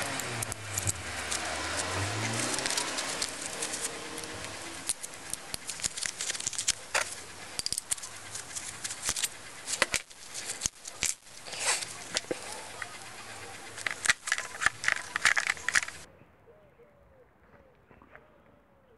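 Small metal fasteners (bolts, nuts and threaded rods) being handled and fitted by gloved hands, giving a dense, irregular run of clicks and clinks. A low tone slides down and back up in the first couple of seconds. About three seconds before the end it cuts to a much fainter background.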